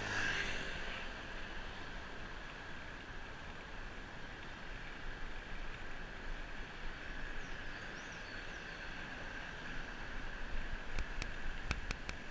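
Steady wind and tyre noise of a bicycle rolling along smooth asphalt, picked up by a GoPro on the rider, with a few sharp clicks near the end.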